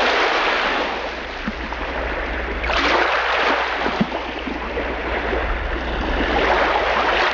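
Sea surf: a steady rush of waves, with one swell growing louder about three seconds in.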